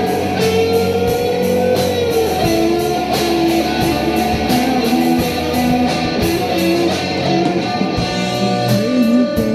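Live rock band playing an instrumental stretch with no vocals: electric guitars and a bass guitar over a drum kit keeping a steady beat.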